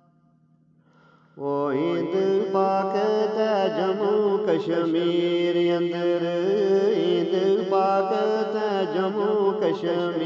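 A man singing a Gojri bait in a chanting style over a steady drone; the voice comes in about a second and a half in, after a near-silent pause.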